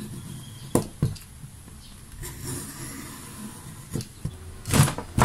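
Hook-blade plastic cutter scraping as it is drawn along a ruler, scoring a groove into a plastic box lid, with two sharp clicks about a second in. Louder scraping and cracking near the end as the scored plastic starts to break through.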